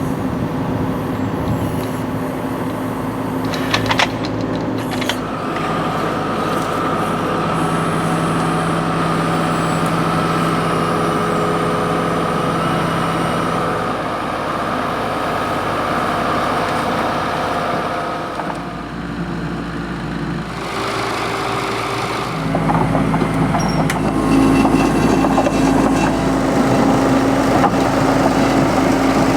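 Engines of heavy machinery running, their pitch shifting several times, with a few sharp knocks about four seconds in; the running gets louder and deeper near the end.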